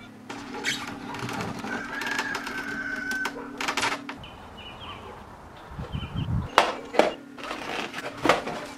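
A rooster crowing in the background, with one held call about two seconds in, over a steady low hum. Later come several sharp clicks and knocks of a boxed item being handled.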